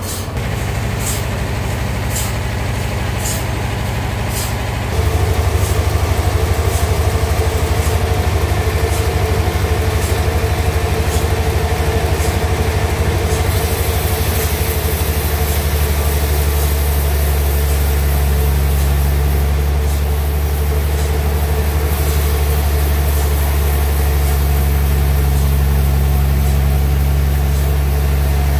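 Engine of a homemade sawmill running steadily, stepping up louder about five seconds in, with a few sharp clicks early on. About halfway through, a steady high hiss joins it.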